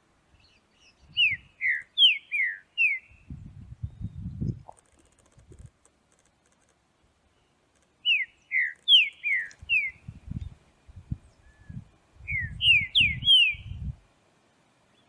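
Green-winged saltator singing: three phrases of clear, downslurred whistled notes, about five notes each. Dull low thumps sound beneath and between the later phrases.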